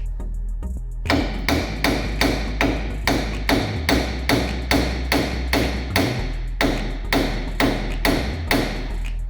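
A hammer striking metal in a fast, even series of about twenty blows, roughly three a second, each with a short ringing tail.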